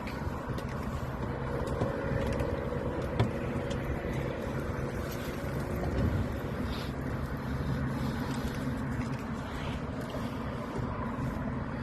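A boat engine hums steadily at a low, unchanging pitch.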